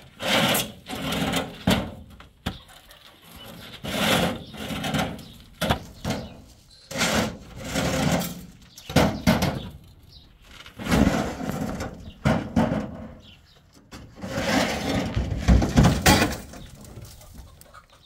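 Hollow concrete blocks being unloaded from a pickup truck's bed: scraping as they are slid across the bed and grating and knocking as they are set down on a stack, in irregular bursts every second or two with a few sharp knocks.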